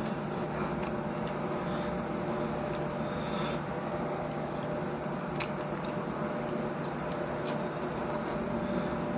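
Eating sounds: hand-mixing of rice and curry, chewing and a few sharp lip or mouth clicks, over a steady mechanical hum.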